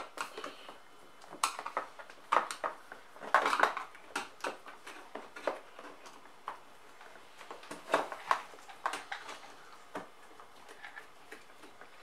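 Irregular clicks, taps and light clatter of screwdrivers and hands working the screws of a dishwasher's plastic inner door panel, with a denser rattle a little past three seconds in.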